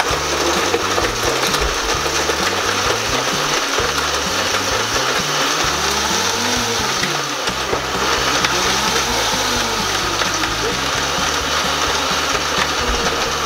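Vitamix countertop blender running steadily at high speed, blending a thick smoothie.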